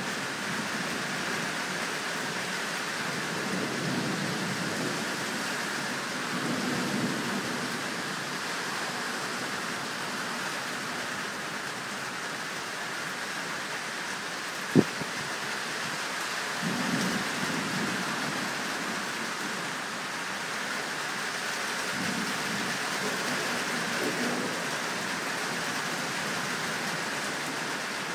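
Steady rain hissing down, with low rolls of thunder rumbling up several times, and a single sharp click about halfway through.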